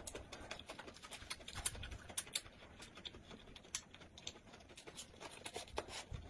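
Close-up eating sounds: two people biting and chewing rolled pancake wraps with fresh lettuce, with soft irregular crunches and mouth clicks and a few sharper crunches.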